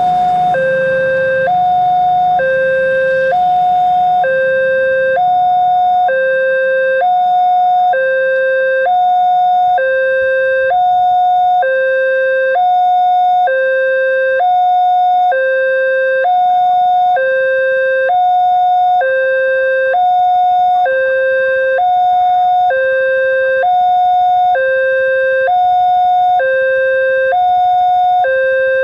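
Railway level-crossing warning alarm sounding: an electronic two-tone signal alternating between a higher and a lower note, one full cycle about every two seconds, warning that a train is approaching. A motorcycle engine is heard passing in the first few seconds.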